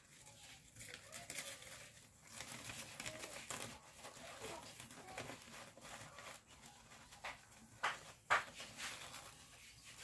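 Paper banknotes and a thin wrapping sheet rustling and crinkling as they are handled and folded, with two sharper crackles about eight seconds in.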